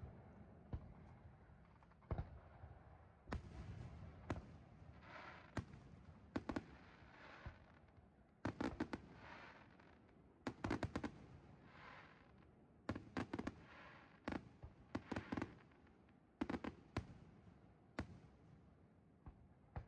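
Aerial firework shells bursting in the sky: a string of sharp bangs, some coming in quick clusters of several cracks, each trailing off in a rumbling echo.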